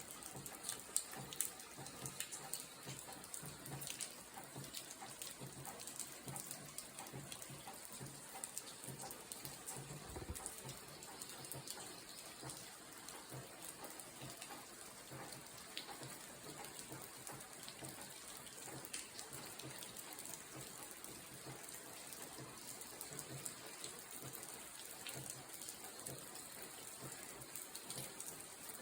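Steady rain falling, a faint even hiss with many small drop ticks throughout.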